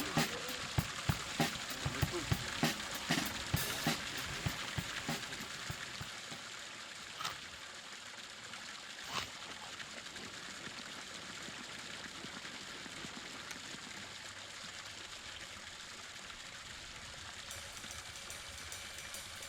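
Regular crunching hits about every half second that fade away over the first five seconds, then a steady even hiss of outdoor background noise with two faint clicks.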